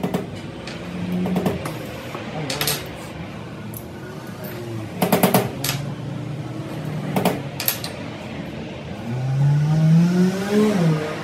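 Sharp metal clinks and knocks, scattered singly and in a quick cluster about five seconds in, from hard metal pieces and tools being handled. Near the end a motor's pitch rises steadily, then drops.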